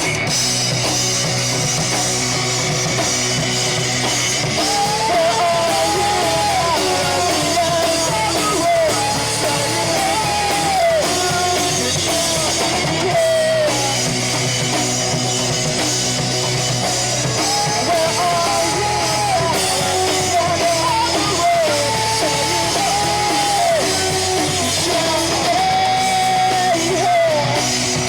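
Live rock band playing a song: guitars and drum kit at a steady loud level, with a melody carried over them from about five seconds in.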